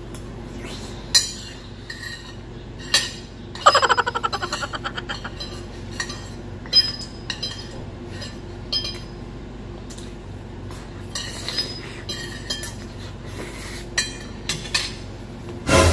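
Metal fork and spoon clinking and scraping against a ceramic plate as rice is scooped up quickly, with scattered sharp clinks. About four seconds in there is a quick rattle of rapid clicks that dies away, and a louder knock comes near the end.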